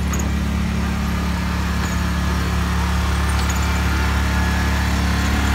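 Steady low engine drone of a small ride-on amusement train as its cars roll past, running evenly with no change in pitch.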